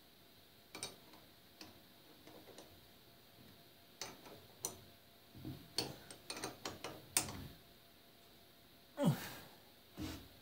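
Scattered sharp metallic clicks and knocks from hands adjusting the cutting tool and tool post on a stopped metal lathe. The knocks come thickest in the middle, and one louder sound falls in pitch near the end.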